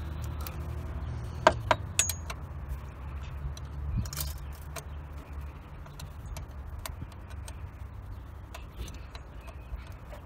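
A few sharp metallic clinks of hand tools and small fasteners against metal during reassembly, the loudest two close together about a second and a half in, over a steady low hum.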